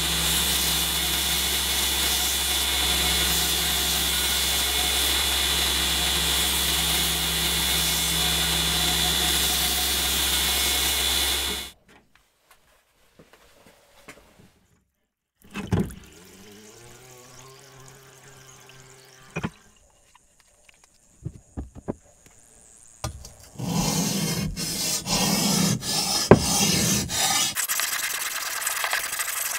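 Belt grinder running steadily, cutting off about twelve seconds in. Later, water is poured into a metal baking pan, its pitch rising as the pan fills, and near the end come scraping and sharp clicks as a sharpening stone and the blade are handled.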